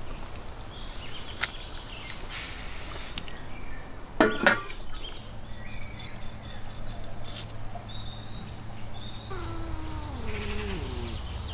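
Cats meowing: a short loud cry about four seconds in, and a long meow falling in pitch near the end, over a low steady hum.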